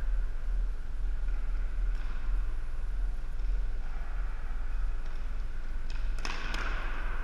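Steady low rumble in a gymnasium, with a brief clatter of floor hockey sticks and ball on the hardwood about six seconds in.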